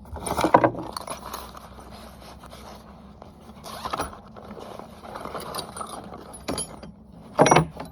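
Rustling, scraping and clicking of chainsaw parts, tools and packaging being handled during assembly, with a few sharp knocks, the loudest near the end.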